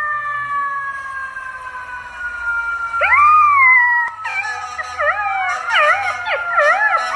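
Golden retriever puppy howling: a loud howl that sweeps up and falls away about three seconds in, followed by quick wavering up-and-down howls. Before that, a long, slowly falling tone plays.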